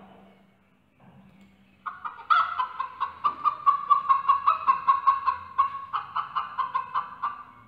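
Domestic hen cackling: a fast run of clucks, about five a second, starting about two seconds in.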